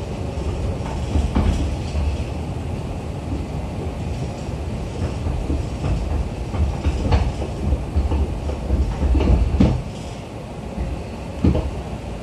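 Running noise inside a Tobu 10000-series commuter train car: a steady low rumble, with an irregular clack now and then as the wheels cross rail joints.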